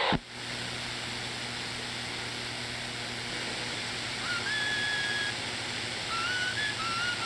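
Radio receiver static: a steady hiss from an open channel between transmissions, with a faint hum. Short whistling tones come and go, stepping up in pitch about four seconds in and again near the end.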